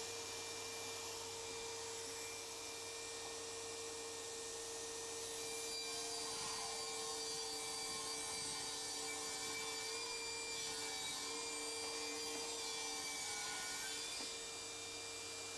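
DeWalt DCS7485 cordless table saw running with a steady whine while ripping through 18 mm sheet stock. The sound grows slightly louder from about six seconds in while the board is in the cut, and eases off near the end.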